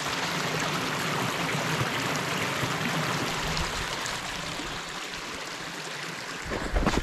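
Small snowmelt creek running over rocks, a steady rush of water. Near the end, low thumps and rustling as the camera is handled.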